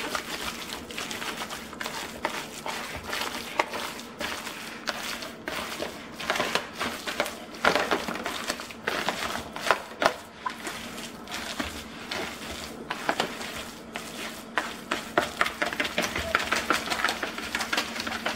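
Hands kneading and squeezing a wet meatloaf mix of ground chicken, oatmeal and egg whites in a large bowl, making an irregular run of wet squelches and clicks. A steady low hum sits underneath.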